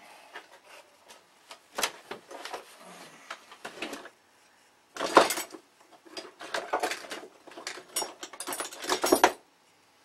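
Small metal tools and hardware clinking and rattling as they are rummaged through by hand, in irregular bursts of clatter, loudest about five seconds in and again near the end.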